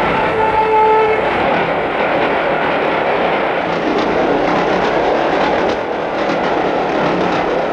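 Cartoon sound effect of a diesel train running along the track, a steady rushing clatter. A horn blast ends about a second in.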